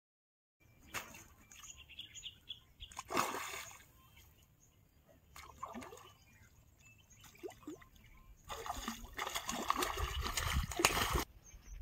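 A hooked carp thrashing and splashing at the water's surface while it is played on a rod: a short burst of splashing about three seconds in, then a longer, louder stretch of splashing near the end.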